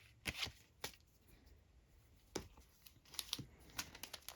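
Weiss Schwarz trading cards being handled and slid against one another: a few short, soft swishes and flicks, coming thicker near the end.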